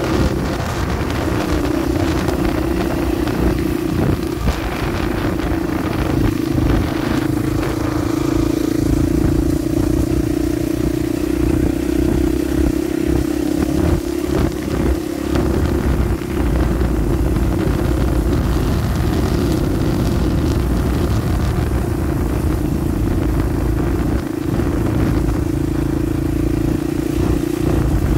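YCF Start 88 pit bike's small four-stroke single-cylinder engine running at a fairly steady pitch while being ridden, with scattered knocks and rattles.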